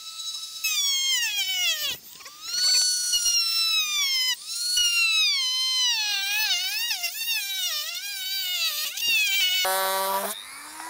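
Handheld rotary tool with a cut-off disc cutting a plastic car undertray: a high-pitched motor whine that sags in pitch each time the disc bites into the plastic and climbs back as it eases off. Near the end the whine briefly drops to a much lower tone, then glides back up.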